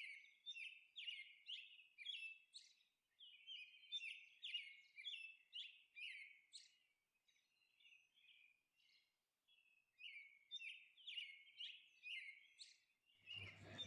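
Faint bird chirps, many short repeated calls in quick succession, pausing for a few seconds in the middle.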